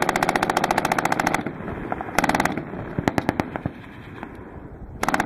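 MG-42 8mm machine gun firing in rapid bursts, its shots coming so fast they run together. A long burst ends about a second and a half in, a short burst follows a little after two seconds, then a few separate shots, and a new burst starts near the end.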